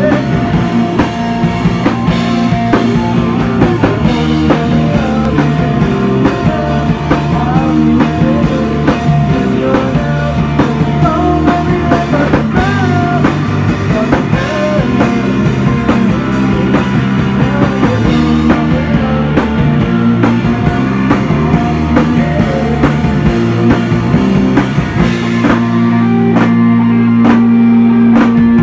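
Live rock band playing, with electric guitar and a drum kit driving a steady beat. Near the end the cymbals drop away and one low note is held under the drums.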